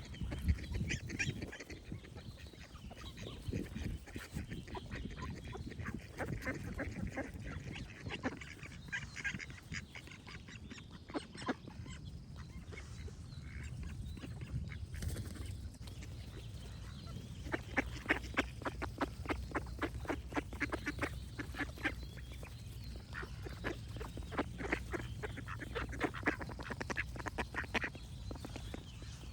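Ducks quacking repeatedly, with a long run of quick quacks, several a second, through the second half, over a low steady rumble.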